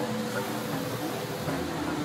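Mirage volcano eruption show soundtrack: a steady rumble with several sustained droning tones held through it.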